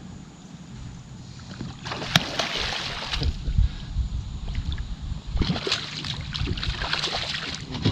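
Water sloshing and hull noise from a kayak while a hooked blue catfish is fought beside it, with one sharp knock about two seconds in.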